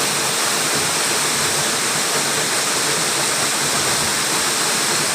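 Waterfall and river water rushing, a steady, fairly loud roar of noise that does not change.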